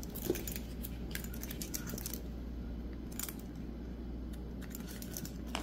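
A few soft, sharp snips and clicks from small scissors trimming the edge of a cork key fob, with light handling of its metal hardware, over a faint steady hum.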